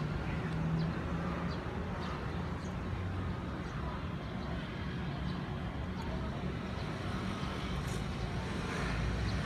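Steady low outdoor background rumble, with a few faint scattered ticks.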